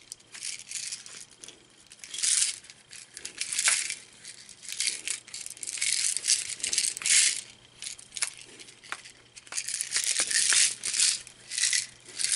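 A small plastic folding novelty puzzle rattling in irregular shakes as it is handled, something loose clattering inside it.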